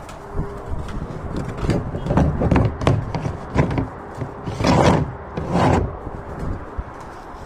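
Irregular knocks and bumps, as on wood, with two longer, louder rustling bursts about four and a half and five and a half seconds in.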